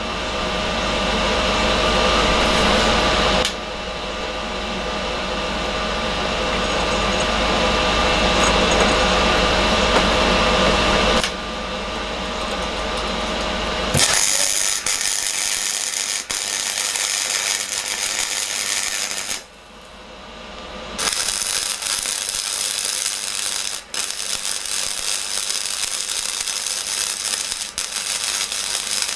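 Electric welding of 16 mm steel round tube: the arc runs in long continuous stretches, with a short break about twenty seconds in.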